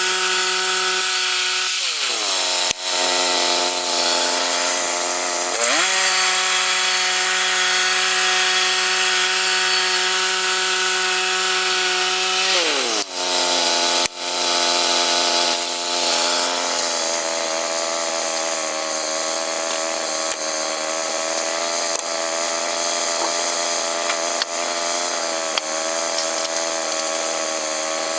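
Gas engine of a sawmill running while sawing lumber, its pitch dropping twice as the cut loads it and climbing back once.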